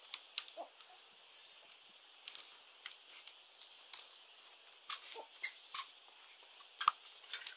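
Split-bamboo strips clicking and rustling as they are woven by hand into a mat, with irregular sharp clicks and ticks scattered through.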